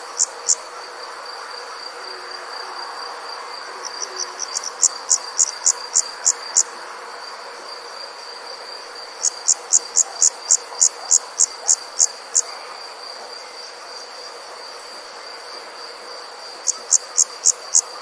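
Night insects calling: a steady high-pitched trill, with runs of loud, sharp chirps at about four a second that last two to three seconds and come back every few seconds.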